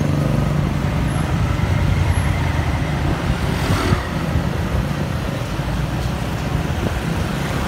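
A motor scooter's engine running steadily under way, heard from on the scooter itself, with road and city traffic noise around it.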